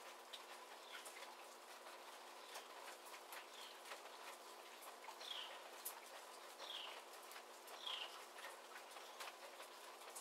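Soft rain pattering with scattered individual drops, and short high chirps, each falling slightly in pitch, repeated every second or so.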